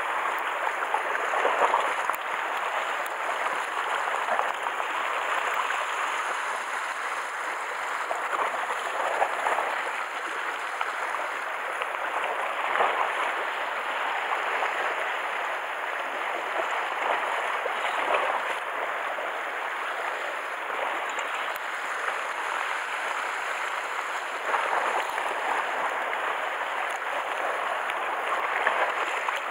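Small sea waves washing against a rocky shoreline: a steady wash of water that swells every few seconds as waves break on the rocks.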